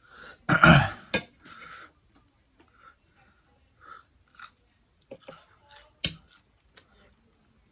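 A man clears his throat with a harsh cough about half a second in, then quiet chewing with small mouth clicks and a sharp click near the end.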